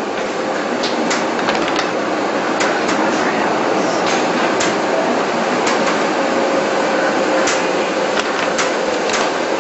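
Sheets of animation paper on a pegbar being flipped and rolled, with short irregular paper snaps and rustles over a steady hiss of room noise.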